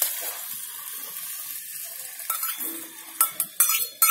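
Cerelac mixture poured into hot ghee in a small non-stick pan, sizzling. From about two seconds in, a spoon knocks repeatedly against the container being emptied, a string of short ringing clinks.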